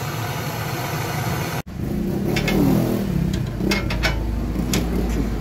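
Twin-nozzle gas torch burning with a steady roar while it heats the steel torsion beam red, cut off abruptly about a second and a half in. After that, a low hum with a few short sharp clicks or taps.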